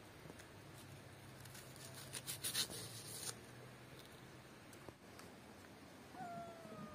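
A small knife cutting through raw onion, with a quick run of crisp cutting clicks about two to three seconds in, over a faint low hum that stops about five seconds in. A short falling whistle near the end.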